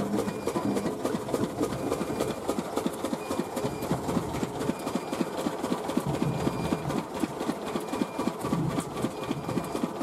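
Poha (rice-flaking) machine running: a fast, even clatter of knocks from the roller and pan working the rice, with a faint short squeak repeating at a steady interval.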